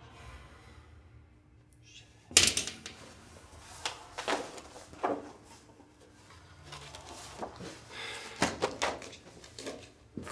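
Cardboard storage boxes being pulled off metal shelving and set down: one loud knock about two seconds in, then a series of shorter knocks and scrapes.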